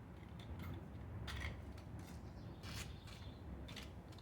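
Faint scattered clicks and short metal scrapes of hand tools being worked on the engine's exhaust header bolts, over a low steady hum.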